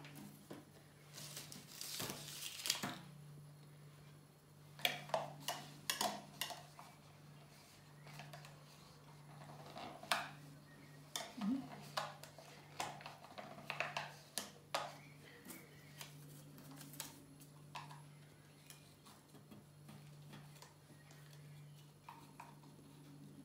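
Small plastic tubs, paper flags and blue tack being handled on a tabletop: scattered light clicks, taps and rustles, in clusters, over a steady low hum.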